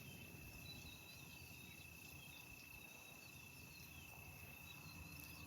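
Faint, steady high-pitched insect trill, typical of a cricket, with a few faint short high chirps now and then.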